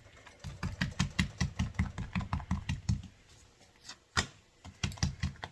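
A fork poking holes in tortillas: quick, light taps about five a second, stopping about three seconds in, then a few sharper jabs near the end.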